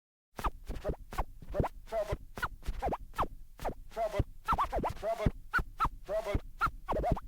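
DJ scratching a record on a turntable: rapid back-and-forth scratches of a sample, several per second, starting abruptly after a brief gap.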